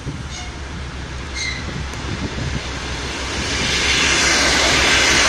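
Aeroexpress electric train passing close by at speed. Its rushing wheel and running noise swells over the first three to four seconds, then holds loud over a steady low rumble.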